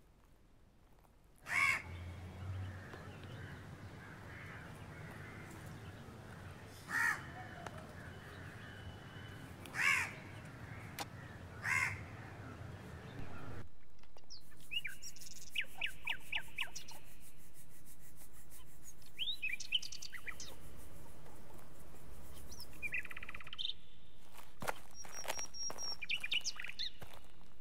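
Crows cawing four times, single harsh calls a few seconds apart over a low rumble. About halfway the background changes abruptly to a steady hiss with small birds chirping in quick, high twitters.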